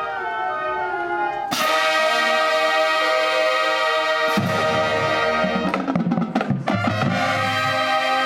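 High school marching band playing: a soft melodic line, then the full band comes in loudly about one and a half seconds in, brass to the fore. Low brass and drums join a few seconds later.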